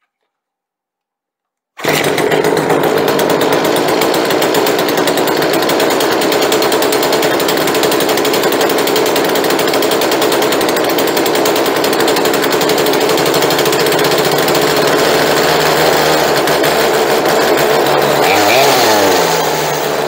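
Poulan two-stroke chainsaw engine running steadily at a fast idle while its carburetor is being adjusted with a screwdriver, the idle screw turned up high and the low-speed mixture screw set a turn and a half out. The sound cuts in after about two seconds of silence, and near the end the engine's pitch sags and wavers.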